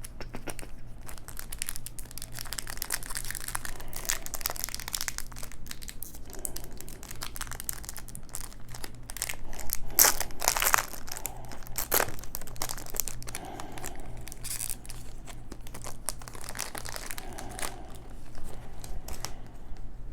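A baseball card pack wrapper being torn open and crinkled by hand, a dense run of crackling with the loudest tearing about halfway through.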